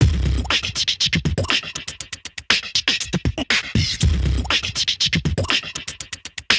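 Background music with a fast, busy percussive beat over deep recurring bass.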